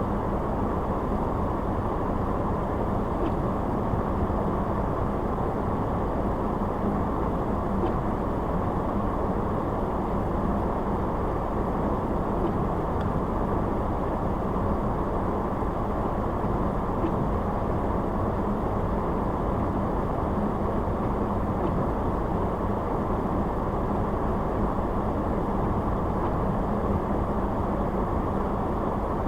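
Car driving along at steady speed: even road and engine noise with a faint low hum, unchanging throughout.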